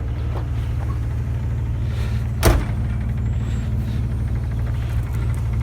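Pickup truck engine running with a steady low hum, and a single sharp knock about two and a half seconds in.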